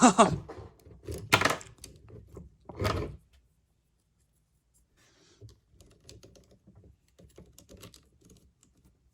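Hard plastic clicks and clacks of a Transformers Masterpiece Ratchet figure being handled: a few louder clacks in the first three seconds, then after a short silence, faint scattered clicking.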